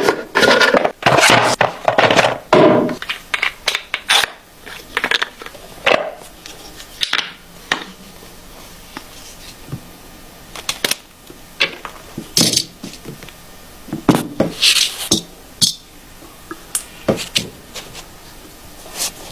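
Unboxing handling noise from a Rode PodMic and its packaging: a burst of rustling and scraping over the first few seconds, then scattered clicks and light knocks.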